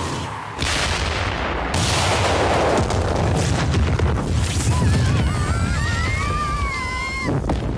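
Sound effect of a huge magical explosion in an anime: a blast about half a second in, a louder blast a second later, then a long rolling rumble. In the second half a high wavering tone rides over the rumble.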